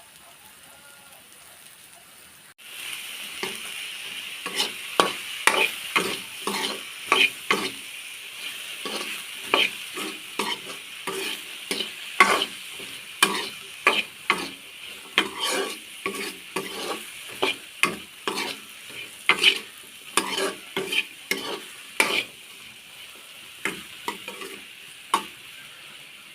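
Okra (ladies' fingers) frying in a pan for bhaji, sizzling steadily, while a spatula stirs and scrapes the pan in repeated sharp strokes, one or two a second. The sizzling starts suddenly a couple of seconds in.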